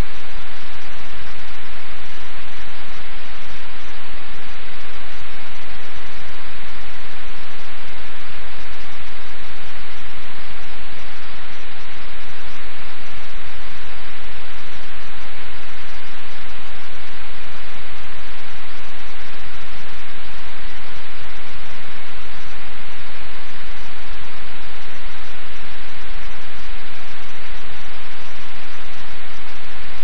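Loud, steady hiss of static noise.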